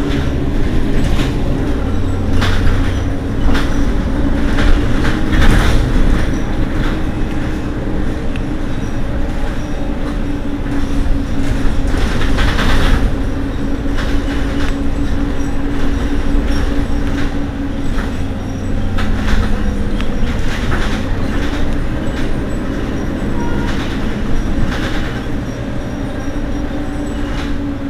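Mercedes-Benz Citaro diesel city bus idling while stopped, a steady engine hum over a low rumble, with irregular clanks and knocks scattered through it.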